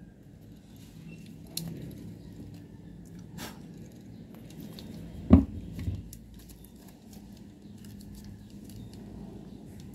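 Hand work on car parts: scattered small clicks and rustling handling noises over a low steady hum, with one sharp, dull knock about five seconds in.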